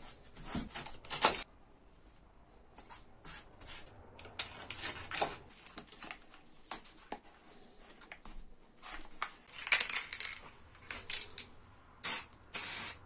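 Paper masking tape being unrolled, laid down and pressed onto a board, with soft rustling and small clicks. Near the end, an aerosol spray-paint can hisses in a short loud burst.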